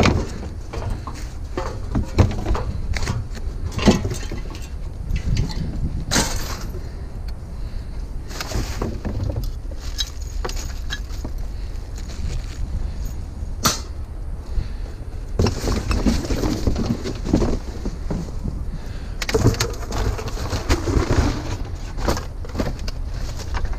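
Discarded ceiling fans and other scrap being handled and shifted in a dumpster: scattered knocks, clunks and clicks, with two longer spells of rustling and clattering in the second half, over a steady low rumble.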